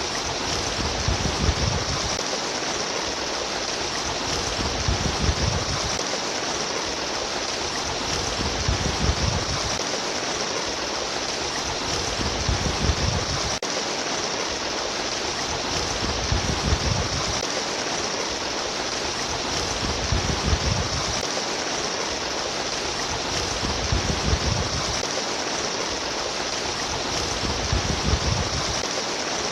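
Trickling, babbling water running steadily, with a low rumble that swells and fades about every four seconds.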